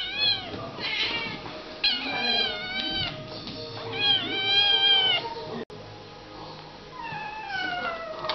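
A kitten meowing insistently: a string of about five long, high-pitched meows, the last one sliding down in pitch near the end.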